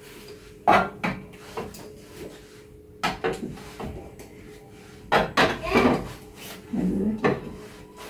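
Items being handled and set down on fridge shelves: scattered knocks and clinks at irregular intervals, over a steady low hum.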